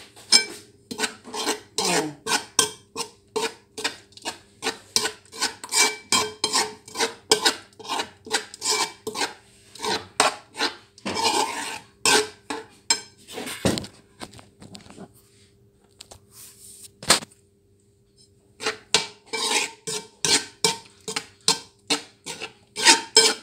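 Metal utensil clinking and scraping against a ceramic bowl as food is mixed in it, at about two to three strikes a second. Past the middle the strikes stop for a few seconds, broken by a single clink, then start again.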